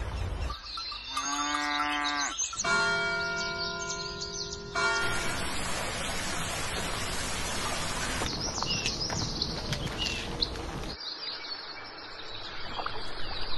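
A run of mountain nature sounds: a cow lowing twice, first with a bending pitch and then held steady, followed by rushing water and then birds chirping.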